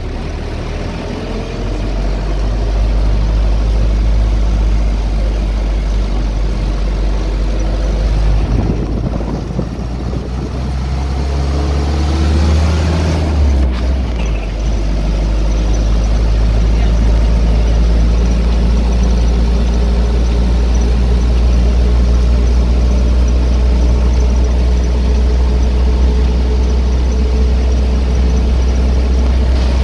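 Minibus engine and road noise heard from inside the cabin, a steady low drone. The engine note rises for a few seconds and then changes abruptly about halfway through.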